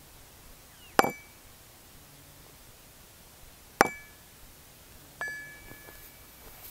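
Ball-peen hammer striking a rivet head seated in a divot of a metal block used as an anvil, doming (pre-curling) the rivet head. Two sharp, ringing blows almost three seconds apart, then a lighter metal clink that rings on for about a second.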